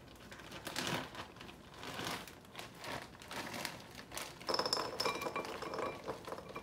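Frozen blueberries poured from a plastic bag into a bowl: the bag crinkles as the hard berries patter and clink into the bowl. The clinking gets louder and rings briefly from about four and a half seconds in.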